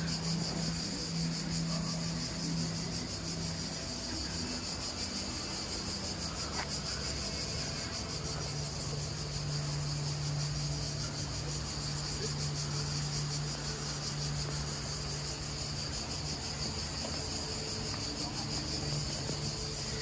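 A steady, high-pitched chorus of insects chirring without a break, with a steady low hum underneath.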